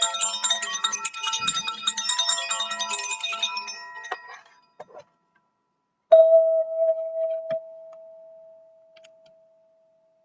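Golden ZenTube sound-healing instrument: a cluster of many ringing, chime-like tones that thin out and stop, then after a short pause a single struck tone that rings on and slowly fades.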